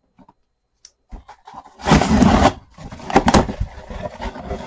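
Cardboard shipping box being opened: the packing tape cut with a box cutter and the flaps pulled apart, with scraping, crackling cardboard and tape noise, loudest about two seconds in.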